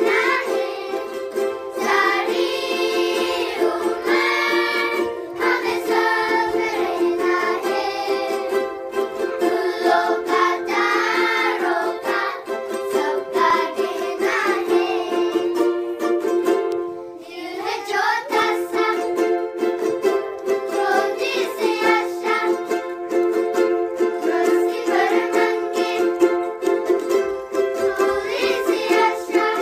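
A group of children singing a song together while strumming ukuleles, with a short lull just past halfway.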